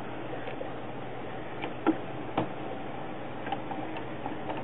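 Plastic handling clicks from an ink cartridge being fitted into a printer's cartridge carriage: two sharp clicks about two seconds in, with lighter ticks scattered around them, over a steady hiss.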